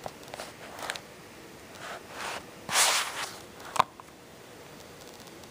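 Handling noise: a few short rustling, scraping bursts and a sharp click about four seconds in, as the camera is moved about in the hand.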